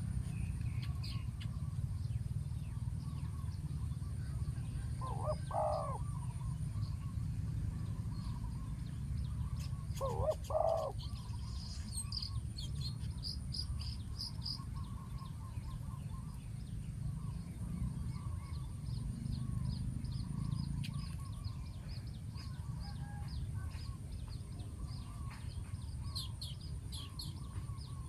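Spotted doves cooing, with two distinct coos about five seconds apart and fainter cooing between. Small birds chirp higher up over a steady low rumble.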